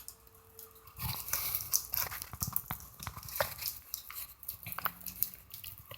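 Pet birds cracking and husking millet seed, a rapid, irregular crackle of small clicks that starts about a second in.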